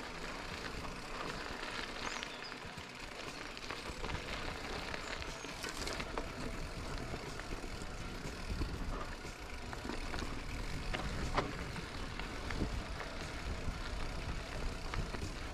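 Mountain bike rolling down a dirt trail: tyres crunching over dirt and stones, with scattered clicks and knocks from the bike and a low rumble.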